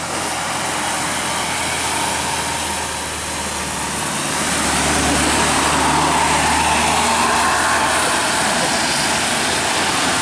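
A heavy road vehicle, engine and tyre noise on a wet road, passing close by; it grows louder about four seconds in and stays loud.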